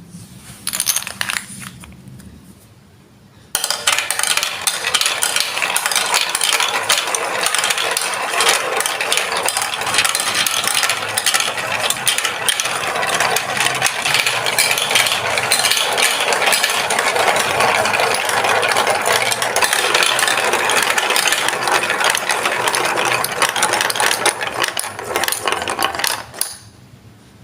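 Marbles rolling and clattering down a plastic Lego Duplo block track. A short rattle comes about a second in. A few seconds in, a dense, continuous rattle of clicks starts and runs on, then stops suddenly near the end.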